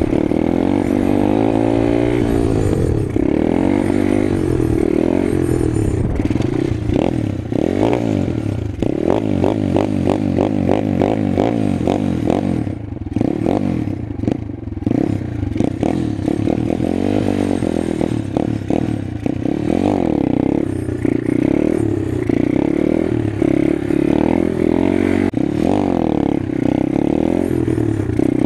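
Apollo X18 125cc pit bike's single-cylinder four-stroke engine revving up and down repeatedly under throttle as it is ridden in wheelies. Around the middle it drops to a slow, pulsing chug and goes briefly quieter before revving up again.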